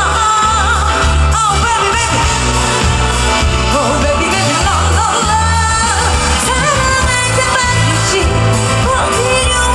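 A female vocalist singing a pop song live into a microphone over amplified backing music, her voice wavering with vibrato above a pulsing bass line.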